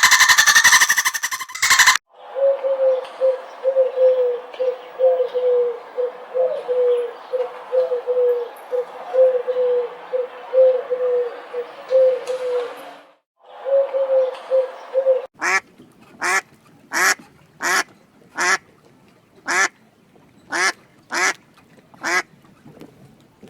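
A loud, harsh sound cuts off about two seconds in. Ducks are then heard quacking: first a long run of rapid, short calls, then a series of about ten single quacks spaced a little over half a second apart.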